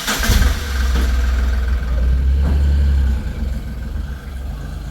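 A motor vehicle's engine running just after starting, a steady low hum that eases off about three seconds in.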